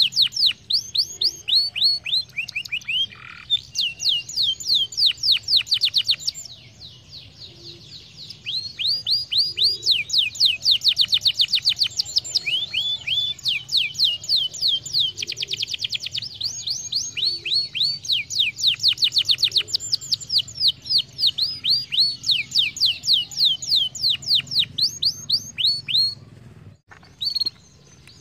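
Domestic canary singing: long rolling trills, each a rapid string of notes sweeping down in pitch, running phrase after phrase with short breaks between them.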